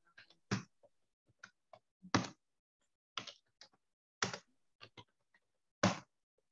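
Typing on a computer keyboard: irregular key clicks with short pauses between them, five strokes clearly louder than the rest.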